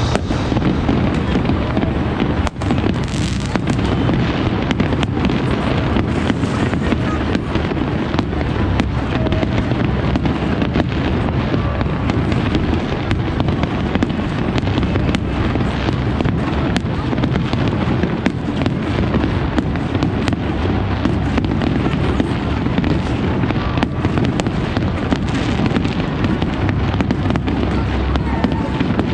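Large fireworks display: a continuous barrage of shell bursts and crackling, with a steady low rumble under many sharp bangs.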